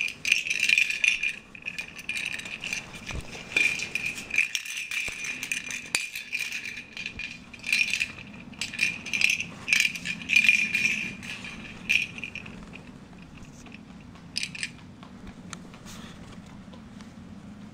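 Plastic rattle ball toy rattling in irregular bursts as a pet rabbit nudges it about with its head. The rattling stops about twelve seconds in, with one more short burst a couple of seconds later.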